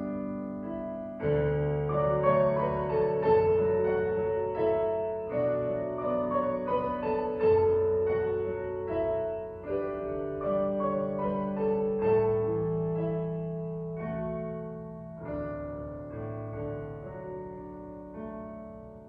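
Piano playing a slow, chordal closing voluntary, held notes ringing over a moving bass, with the music growing quieter toward the end.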